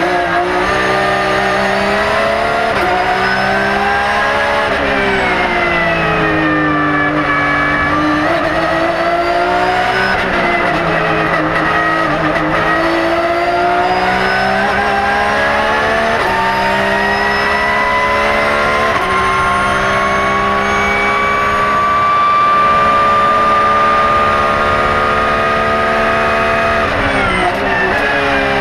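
Porsche 911 GT3 R's flat-six racing engine heard from inside the cockpit at racing speed, its pitch rising and falling with throttle and gear changes. It makes one long steady climb in revs through the second half, then drops sharply near the end.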